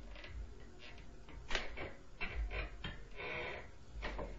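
Irregular thumps and knocks from the apartment overhead, which the resident takes for the upstairs neighbors stomping. About five knocks come over a few seconds, with a scraping noise a little past the middle, over a low rumble.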